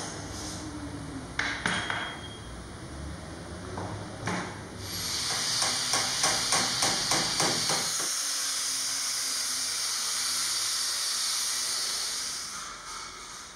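A few knocks, then a paint scraper drawn over old painted wood in quick strokes, about three a second. An electric sander with a round pad then runs on the wood, a steady high hiss that fades near the end.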